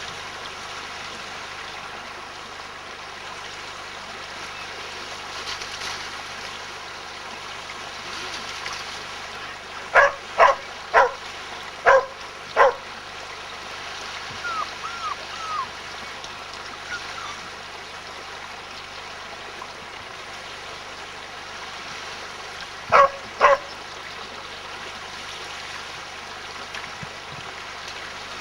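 A dog barking: five sharp barks in under three seconds, then two more about ten seconds later, over a steady rushing background noise.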